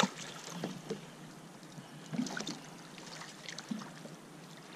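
Water sloshing and small splashes around a landing net being worked in the water beside a bass boat, with a few faint knocks.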